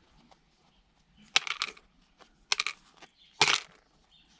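Small hard pieces clicking and clattering against each other in three short bursts, about a second apart, as they are handled and packed into a container.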